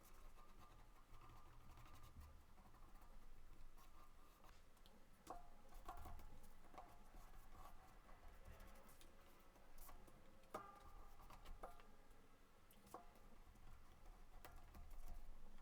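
Faint paper handling: soft rustles and scattered small taps and clicks as paper is folded and pressed.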